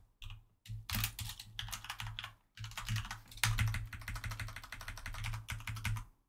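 Typing on a computer keyboard in quick runs of keystrokes, with a brief pause about two and a half seconds in and stopping just before the end.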